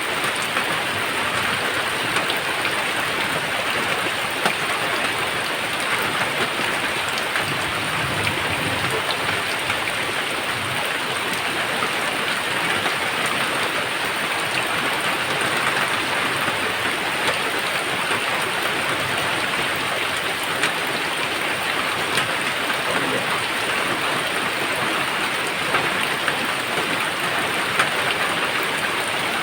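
Steady, heavy rain falling on a surface, with scattered sharper drop ticks over an even hiss.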